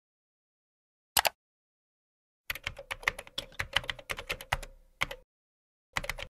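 Typing on a computer keyboard, sharp key clicks: a double tap about a second in, a quick run of keystrokes lasting about three seconds, then a few more keys near the end.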